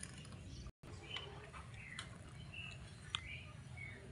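Faint outdoor background: a steady low rumble with a few short high chirps and light clicks, cut by a brief dropout to silence just under a second in.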